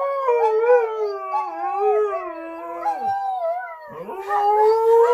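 Husky howling in long, wavering howls. One howl falls away about three seconds in, and another starts about a second later.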